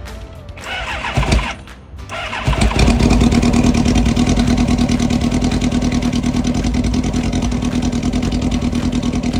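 Kawasaki ZX10R inline-four engine cranked on the electric starter for about a second. After a short pause it cranks again and catches about two and a half seconds in, then idles steadily with a fast, even beat. The bike is hard to start and, in the owner's words, definitely needs a tune.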